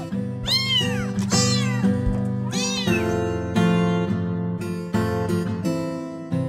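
Kitten meowing: three high, arching cries in the first three seconds, over background music.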